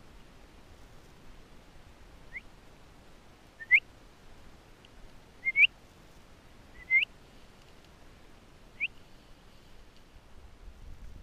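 Five short, sharply rising whistled chirps, spaced a second or two apart, over faint outdoor hiss.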